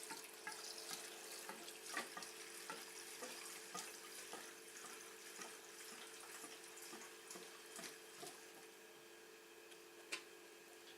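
Premixed two-stroke fuel being poured into a brush cutter's fuel tank: a faint trickle with irregular small glugs and drips.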